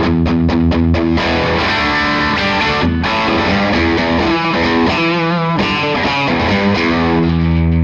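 Electric guitar played through the Iannucci Audio King of Tone overdrive pedal, with a distorted tone. Short repeated chord stabs give way to held chords, with a note shaken in vibrato about five seconds in.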